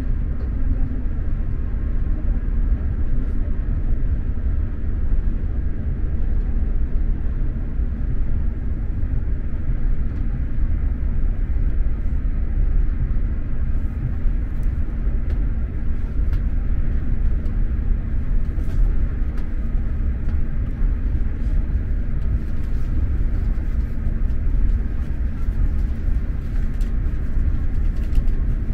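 Steady low rumble of an X2000 high-speed train running along the line, heard from inside the passenger carriage, with a faint steady hum and a few faint ticks.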